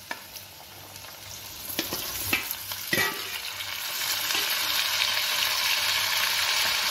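Chopped green beans tipped from a steel plate into a pan of potato wedges frying in oil, with a few sharp metal clinks. A steel ladle then stirs them as the oil sizzles, growing louder from about halfway in and staying steady.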